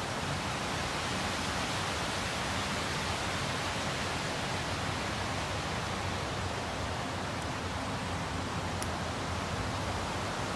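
Steady, even rushing noise outdoors with no change in level, and a faint short high tick near the end.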